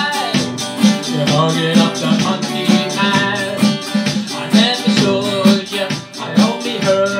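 A man singing a ska song while strumming an archtop guitar in a steady rhythm, over a steady percussive beat.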